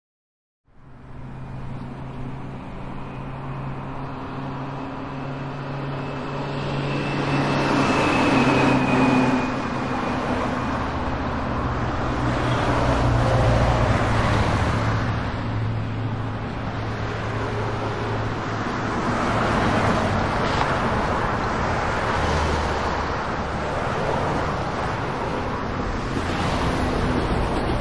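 Street traffic: a steady rumble of vehicle engines and tyres that fades in about a second in, swelling louder now and then as vehicles pass.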